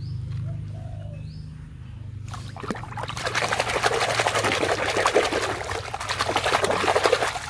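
Muddy water splashing and sloshing in a metal basin as a hand scrubs a mud-caked toy car in it. The splashing starts about three seconds in and stops just before the end.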